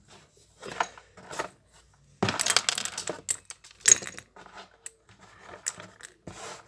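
Small hard toy food pieces being poured into a little plastic pen, clicking and clattering against each other and the container in several uneven bursts; the loudest comes about two seconds in.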